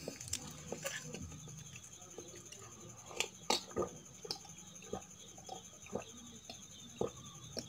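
Close-miked eating-video mouth sounds: scattered small clicks and smacks, then a few gulps as she drinks from a mug about three seconds in.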